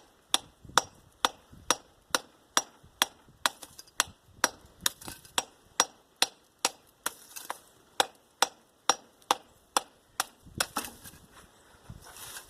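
Steady hammer taps on an electric motor armature, about two a second, knocking the copper windings loose so they can be pulled out. The taps stop near the end, followed by lighter handling clatter.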